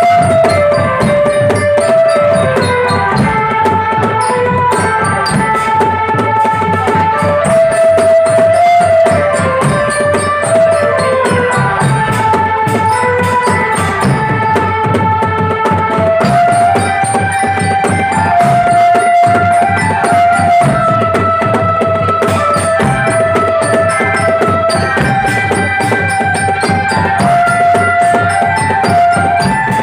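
A drum band playing: a stepping, pitched melody over continuous drumming on bass and tenor drums.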